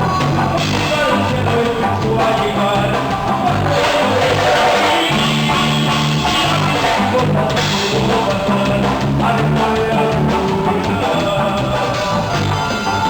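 Duranguense band music at a lively dance tempo, with a steady stepping bass line under melody instruments and drums.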